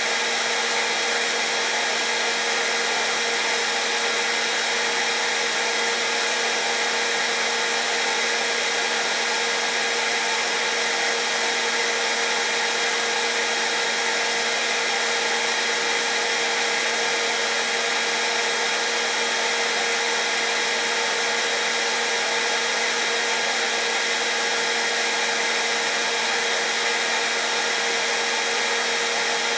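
Hairdryer running steadily: a constant rush of blown air with a steady motor hum and a thin high whine.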